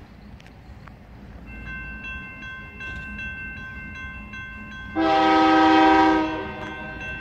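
Railroad grade-crossing warning bell starts ringing rapidly and keeps ringing. About five seconds in, the approaching freight locomotive's air horn sounds one loud blast of about a second, the loudest sound here.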